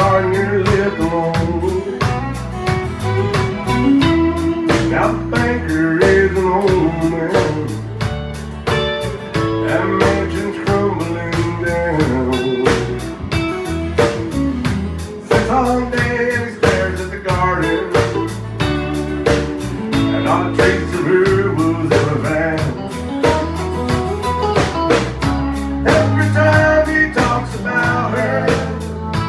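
Live country band playing: electric and acoustic guitars, electric bass and fiddle over a steady beat.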